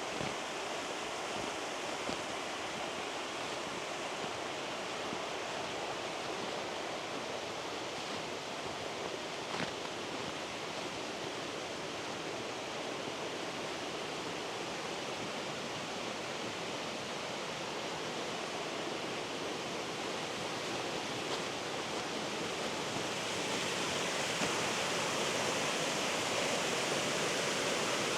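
Rushing water of a mountain stream, a steady even hiss that grows louder about three quarters of the way through.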